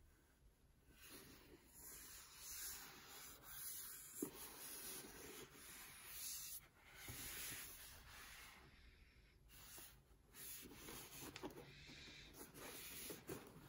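Faint rubbing, sliding and rustling of the headphone box's packaging being handled, in short stretches that start and stop, with a sharp knock about four seconds in.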